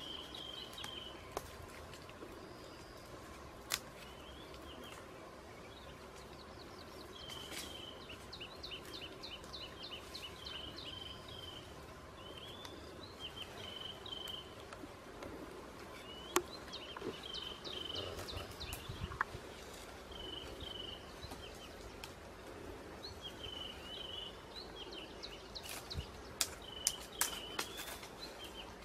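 Forest birds chirping in repeated runs of quick, high calls, several bouts in all. A few sharp clicks and knocks stand out: one a few seconds in, one midway, and a cluster near the end.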